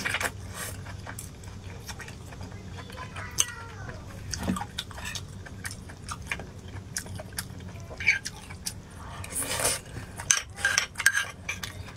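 Close-miked chewing and wet mouth smacks while eating a green chili pepper, with a spoon clinking against a bowl a few times near the end.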